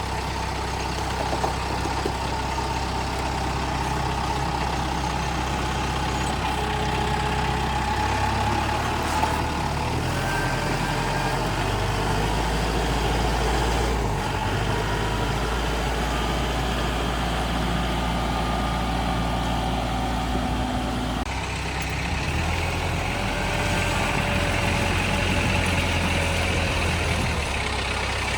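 Farm tractor engine running steadily, its note shifting a few times as it works.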